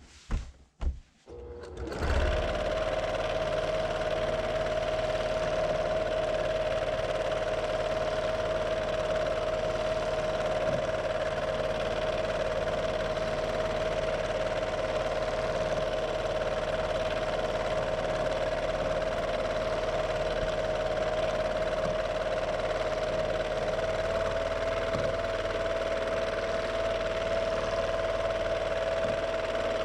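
Brother PQ1500SL straight-stitch sewing machine running steadily at speed, with an even motor whine. It starts about two seconds in, after a few short knocks.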